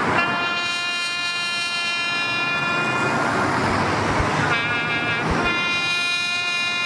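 Military bugle sounding a call: a long held note, then a quick run of short notes about four and a half seconds in leading into another long held note, over steady traffic noise.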